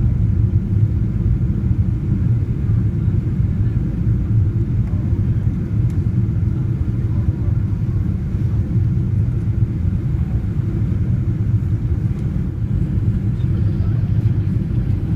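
Steady low rumble of a Boeing 777-200ER's cabin on final approach: Rolls-Royce Trent engines and air rushing past the wing with its flaps lowered, heard from a seat behind the wing.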